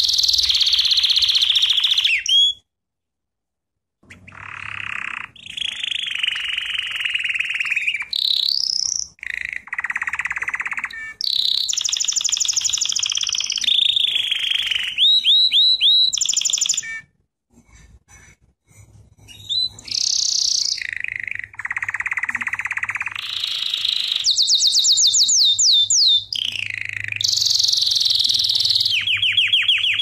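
Canary singing a long song of rapid trills and rolls. Each tour is a quick run of one repeated note that switches to a new pattern every second or two. The song pauses briefly about three seconds in and again about seventeen seconds in.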